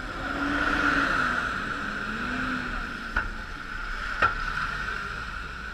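Bus passing close by on a wet road: its engine and the hiss of its tyres swell about a second in and then ease off. Two short sharp clicks come later.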